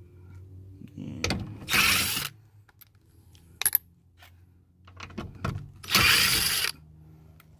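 A cordless power driver with a 5.5 mm socket spins out the screws holding a factory door speaker. There are two short runs about four seconds apart, each building up briefly before the louder part, with small metallic clicks in between.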